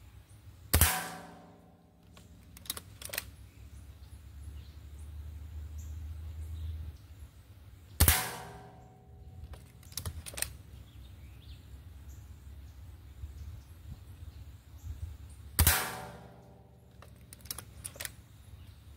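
Gamo Swarm Whisper .22 air rifle firing three shots about seven seconds apart, each a sharp crack with a short ringing tail. About two seconds after each shot come two or three lighter clicks.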